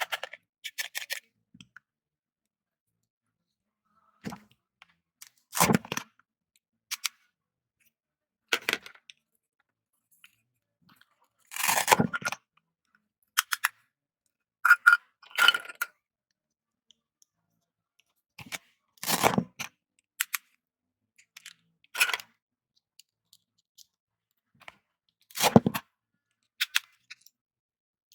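Toy fruits and vegetables being cut apart with a toy knife: a dozen or so short crunching, tearing sounds one to three seconds apart, with dead silence between them.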